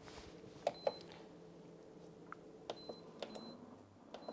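Stainless steel bowl clinking twice as it is set onto a saucepan, then an induction hob's touch controls beeping several times, short high beeps, as the heat is switched on under it.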